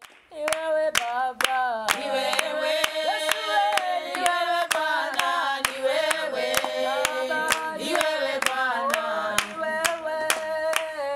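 Women singing a song together, with steady hand-clapping in time, about two claps a second.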